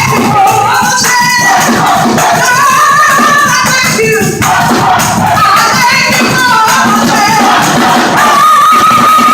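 Live gospel music: voices singing over steady percussion with a tambourine jingling.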